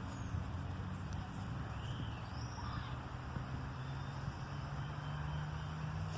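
Wind noise rumbling on the microphone with a low steady hum under it, and a couple of faint bird chirps about two to three seconds in.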